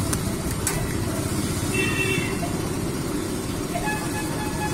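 Steady street-traffic rumble, with a brief high-pitched call about two seconds in and a short steady tone near the end.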